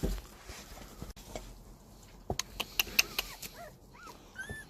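Puppies about 17 days old whimpering: about four short, high squeaks that rise and fall, in the second half, after a few sharp clicks.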